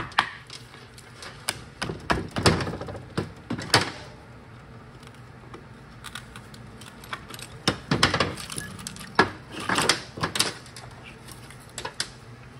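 Hand tools clicking and knocking on the aluminium case of an AB60E automatic transmission while stuck wiring harness connectors are worked loose, in scattered clusters of sharp taps with quieter gaps between.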